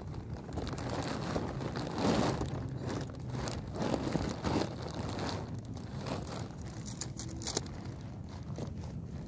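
Nylon tent bag and fabric rustling and crinkling as it is pulled open and handled, in uneven swells, with a few sharp clicks about seven seconds in.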